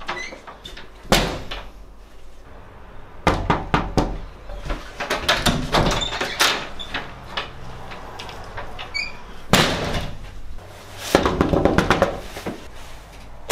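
A door slammed shut about a second in, followed by bouts of banging and rattling against the door, with another hard bang near the middle.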